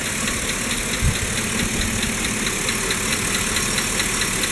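Chevrolet 5.3 V8 idling with a fast, even ticking, about four ticks a second, and a low thump about a second in. The owner takes the tick for a failing lifter, not an exhaust leak.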